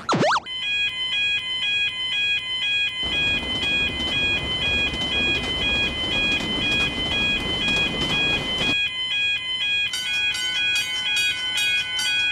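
Japanese railroad crossing alarm ringing its alternating two-tone 'kan kan'. From about three seconds in to near nine seconds a passing train's rushing rumble runs under it, and near the end a second, higher ringing pattern joins in.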